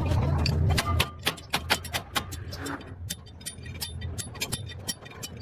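Sharp metallic clinks and taps of tools against metal parts, several a second, some briefly ringing. A low steady hum underneath cuts off about a second in.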